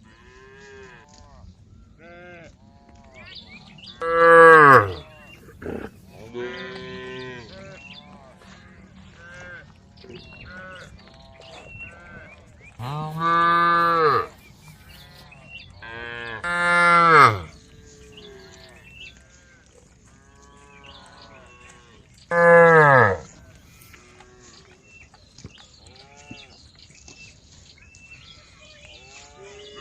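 Cows mooing over and over: four loud moos, several dropping in pitch as they end, with many fainter moos in between.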